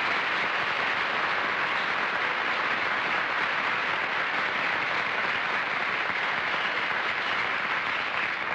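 Studio audience applauding steadily, beginning to die away at the very end.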